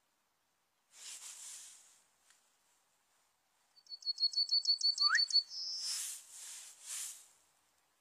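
Yellowhammer singing one song: a quick run of about ten short, high repeated notes that ends in a longer, slightly higher drawn-out note. Patches of hiss come before and after the song.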